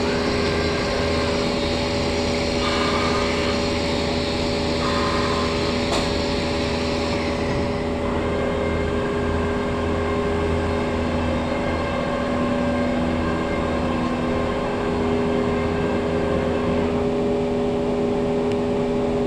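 CNC router running as it machines a board: a steady machine drone with a constant whine. Its higher hiss drops away about eight seconds in.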